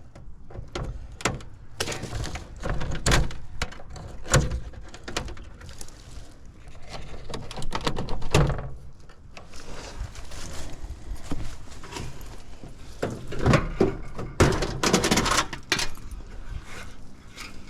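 Irregular clicks, clanks and knocks of screws being backed out of a heat pump outdoor unit's sheet-metal top panel, with a few louder knocks.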